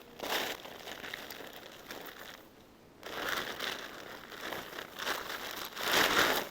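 Crinkling and rustling in uneven bursts, with a short lull about two and a half seconds in and the loudest burst near the end.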